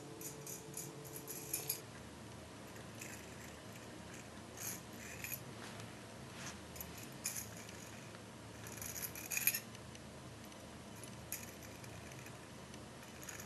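Small metallic clicks and light scrapes from a steel dental instrument being handled and turned in the fingers, coming in scattered short clusters over a low, steady room hum.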